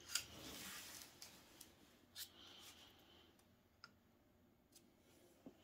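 Faint clicks and light scraping of a dial indicator's magnetic base stand being handled and shifted across cardboard on the bench.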